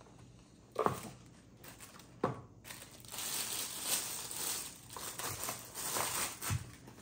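Two short knocks, then plastic packaging crinkling and rustling from about three seconds in as it is handled.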